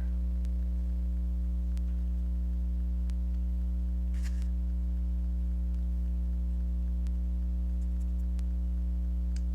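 Steady electrical mains hum, with a few faint small clicks and a brief scratchy rustle about four seconds in from handling small objects close by.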